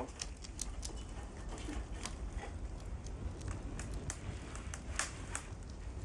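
Wood fire crackling, with irregular sharp pops and snaps over a low steady rumble.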